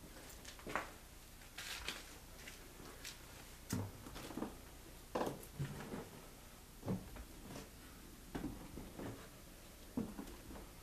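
Slow, uneven footsteps on a debris-covered floor, knocking and crunching about once a second.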